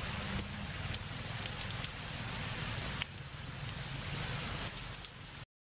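Heavy rain falling, a steady hiss with scattered ticks of single drops. The level steps down a little about three seconds in, and the sound cuts to silence just before the end.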